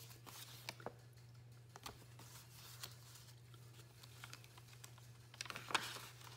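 Faint paper and card handling: a small card sliding out of an envelope pocket and being turned in the hands, giving scattered light ticks and rustles with a louder cluster near the end. A steady low hum sits underneath.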